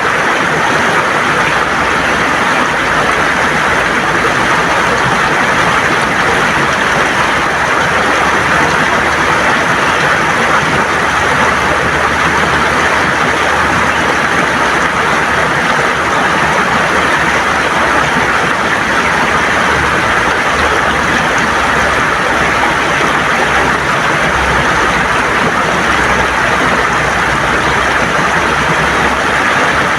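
River water rushing and gurgling over stones in a loud, steady wash.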